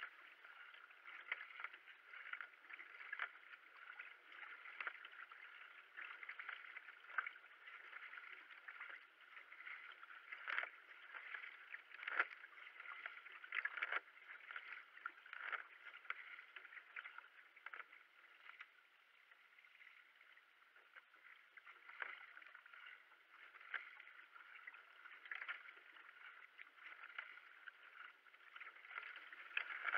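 Paddle strokes of a racing kayak: the blades splash into and pull through the water about once a second, alternating sides, over the steady rush of water along the hull.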